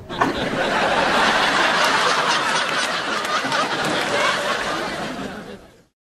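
Many people laughing together. The laughter starts suddenly, holds steady and fades out near the end.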